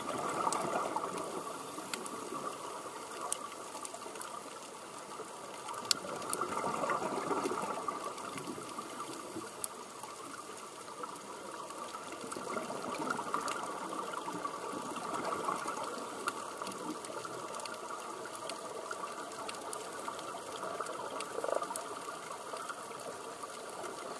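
Scuba divers' exhaled bubbles bubbling and gurgling from their regulators, heard underwater. The sound swells and fades every few seconds with the breaths, and faint clicks are scattered through it.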